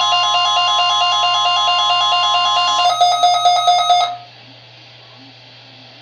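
NOAA weather radio sounding the National Weather Service warning alarm tone, a loud steady tone under a stepping electronic beeping, during a Required Weekly Test. The steady tone cuts off about three seconds in and is followed by about a second of rapid buzzy data bursts, the end-of-message EAS tones. After that there is only faint radio static.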